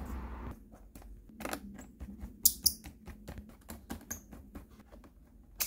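Small precision screwdriver driving screws into the plastic bottom case of an Acer Chromebook: rapid, irregular clicking and ticking as the screwdriver turns, with a few sharper ticks.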